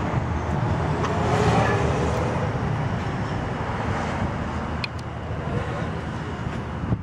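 Steady outdoor traffic noise with a low, constant vehicle hum, and a few faint clicks.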